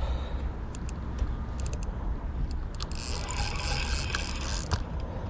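Spinning reel being cranked while fighting a hooked carp, its gears and pawl ticking and clicking, with a longer hissing stretch of reel noise about three seconds in. A steady low rumble runs underneath.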